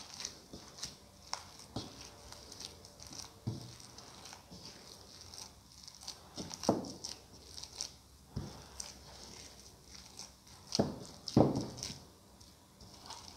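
Bare hands kneading and squeezing a soft dough of mashed potato, minced chicken and corn flour in a bowl: irregular squelching and pressing sounds with occasional knocks against the bowl, the loudest a pair of thumps near the end.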